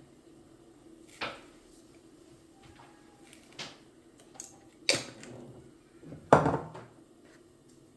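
Kitchen household handling sounds: a string of separate knocks and clatters as things are picked up and set down, the loudest and heaviest thump about six seconds in.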